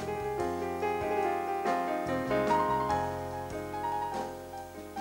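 Background music: a piano melody played over held chords.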